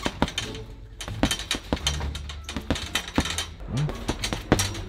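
Boxing gloves punching a hanging heavy bag: sharp slapping thuds in quick, uneven flurries, about two or three a second. Music plays faintly underneath.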